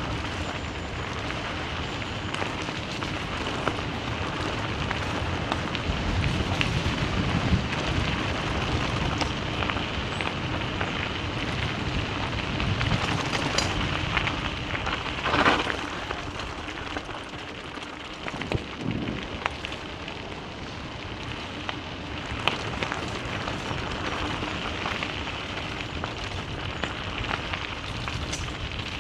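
A vehicle driving on a loose gravel road: a steady crackle and rumble of tyres on the gravel, with a low engine hum under it. A louder thump comes about halfway through, as from a bump or a stone hitting the underside.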